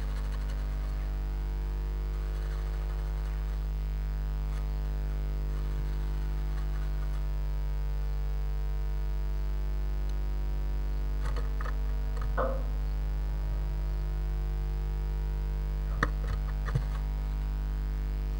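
Steady electrical mains hum. A few faint scratches and taps come about two-thirds of the way in, and two sharper clicks near the end, as a blue tit moves about on the moss and grass nest inside the nest box.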